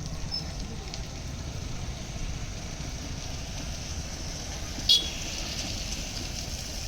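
Steady low rumble of outdoor background noise, with one sharp click and a brief high ring about five seconds in.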